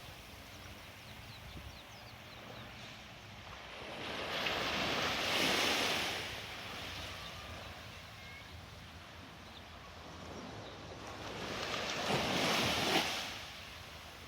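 Sea waves breaking and washing up on a beach, the surf swelling up twice several seconds apart over a steady wash, with a low wind rumble on the microphone.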